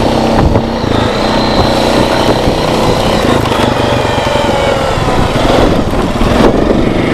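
Four-wheeler (ATV) engine running while riding, with heavy wind buffeting the microphone.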